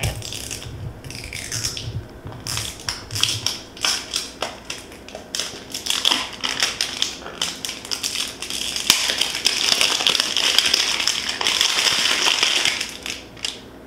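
Cellophane wrap crinkling as it is torn and peeled off a perfume box by hand: scattered sharp crackles that turn into a dense, louder crackle about nine seconds in, easing off near the end.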